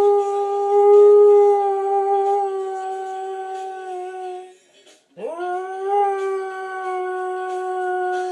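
Basenji dog yodel-howling: one long held howl that fades out about halfway through, then, after a brief pause, a second howl that scoops up in pitch and holds steady.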